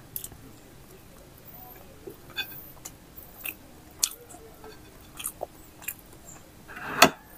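Close-miked eating sounds of a person chewing rice and steamed egg eaten by hand: scattered soft mouth clicks and smacks, with one louder sharp noise near the end.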